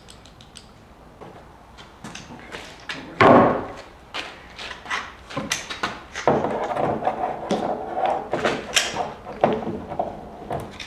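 Hand tools and waterer parts being handled: irregular clicks, clinks and knocks, with one loud thump about three seconds in and a denser clatter a little after the middle.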